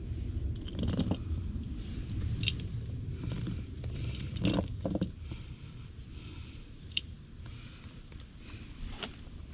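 Hands working with the new CV axle: scattered light clicks, soft scrapes and a couple of knocks about halfway through, as grease is worked into its ends, over a steady low rumble.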